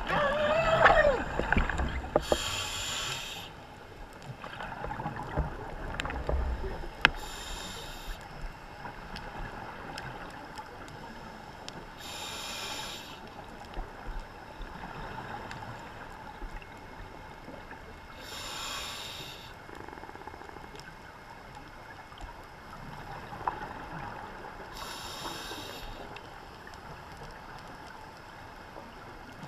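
Scuba diver breathing through a regulator, heard underwater and muffled by the camera housing: five hissing breaths about six seconds apart over a steady low rumble of water and bubbles, with louder gurgling at the start.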